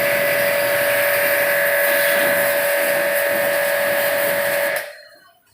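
A machine running with a loud, steady hiss and a steady whine, cutting off suddenly about five seconds in.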